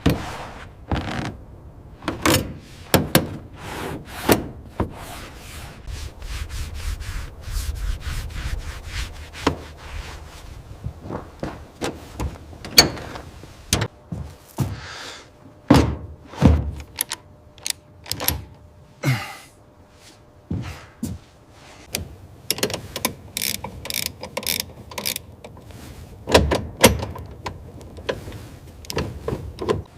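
Hand tools and metal parts clicking, knocking and thunking at irregular intervals, as in hands-on mechanical work on a car, with a few louder knocks.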